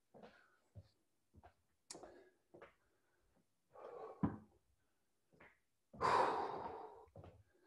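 A man breathing hard, winded by a short, intense workout, with a sharp thump about four seconds in and a louder rush of breath lasting about a second near the end.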